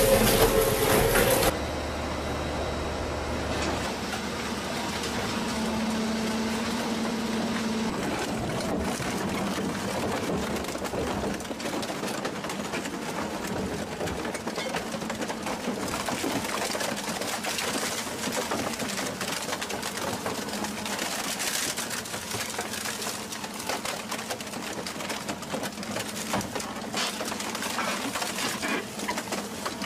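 A machine running with a steady, rapid mechanical rattle and a low hum underneath. A louder sound cuts off abruptly about a second and a half in.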